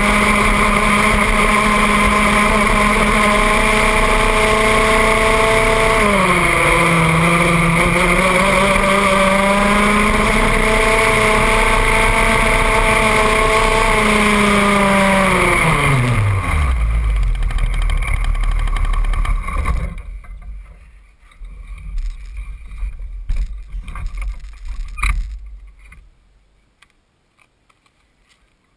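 IAME X30 125cc two-stroke kart engine running at high revs on track, its pitch dipping once about six seconds in and climbing back. About fifteen seconds in the revs fall away as the kart slows, and the engine stops around twenty seconds in, leaving a few scattered knocks and rattles.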